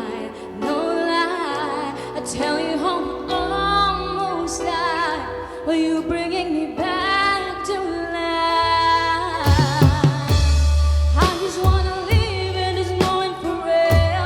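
Pop ballad sung with band accompaniment: a held, wavering vocal line over sustained chords. A deep bass and drum hits come in about nine and a half seconds in, and the song builds from there.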